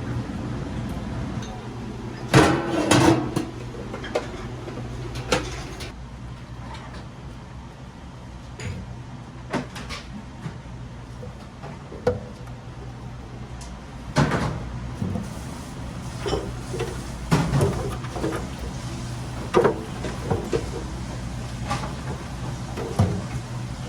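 Electric radish-slicing food machine running with a steady low hum, with irregular knocks and clatters over it. The loudest cluster of clatter comes about two to three seconds in.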